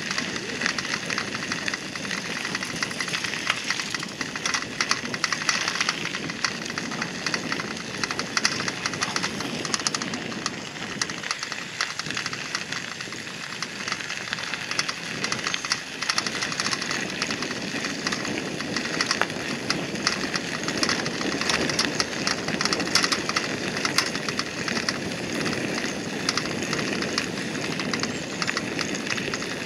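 Bicycle tyres rolling over a gravel path: a steady crunching crackle of small stones under the wheels, with fine rattling.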